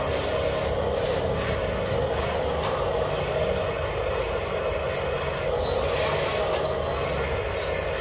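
Huina remote-control excavator's electric motors and gears whirring steadily as the boom lowers and the bucket digs into sand, with scattered clicks and scraping of the bucket in the sand.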